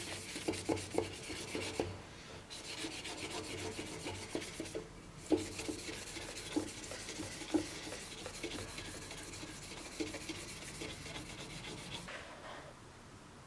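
Maroon non-woven abrasive pad on a wooden block rubbed rapidly back and forth by hand over a steel sword cross-guard, hand-finishing the metal: a steady scratchy scrubbing hiss with a couple of brief pauses and a few light knocks. The rubbing stops about a second before the end.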